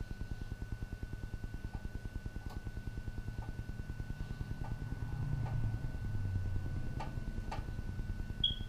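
DJI Phantom 3 Professional quadcopter's propellers humming in flight with a fast, even pulsing beat, swelling a little in the middle. A few light clicks come near the end, and a short high chirp just before it ends.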